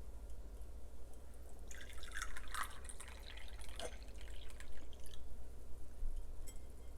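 Barley tea being poured into a cup, splashing and trickling in two spells, the first about two seconds in and a fainter one near the end.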